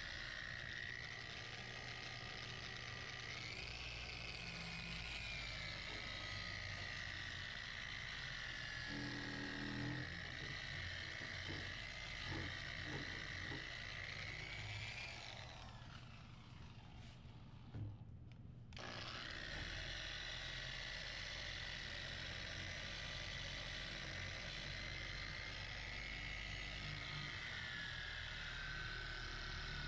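Mirka electric sander wet-sanding the clear coat on a painted motorcycle tank, its motor giving a steady whine that wavers a little in pitch. The whine stops for about three seconds past the middle, then starts again.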